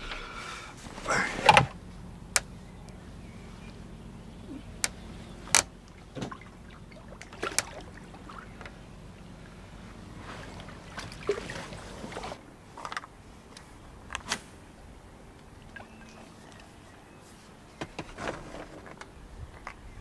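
Handling noises aboard a small fishing boat: scattered sharp knocks and clicks, and water sloshing around the middle as a carp is let go from a wet sling over the side. A faint steady low hum runs underneath for much of it.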